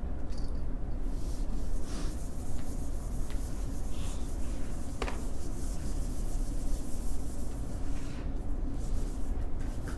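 Dry-erase marker rubbing across a whiteboard in short writing strokes, over a steady low room hum, with a single sharp click about halfway through.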